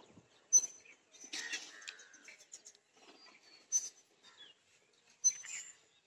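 A child banging a small metal chunauti (tobacco-and-lime tin): three or four sharp metallic knocks, irregularly spaced a second or more apart, each with a brief high ring.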